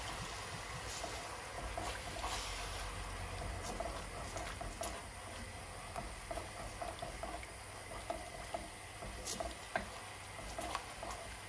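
Barbecue sauce bubbling in a hot wok: a steady low sizzle with scattered small pops and clicks.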